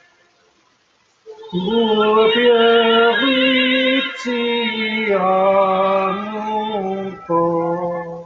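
A slow hymn sung by a soprano on a recording, held notes with a wavering vibrato, starting about a second and a half in and moving in phrases with short breaks.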